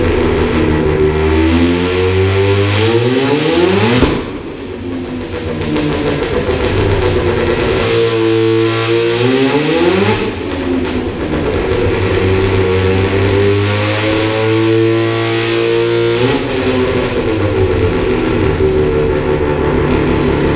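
Turbocharged Mazda RX-7 13B twin-rotor rotary engine, half-bridge ported and running E85, making full-throttle pulls on a dyno. Three times its pitch climbs steadily for a few seconds and then drops as the throttle is lifted, about 4, 10 and 16 seconds in.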